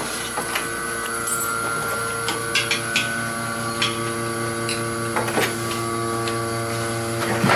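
Milking vacuum pump for a Surge bucket milker running with a steady hum, switched on just before. Irregular light metal clinks come through it as the stainless bucket and teat cups are handled and put on a cow.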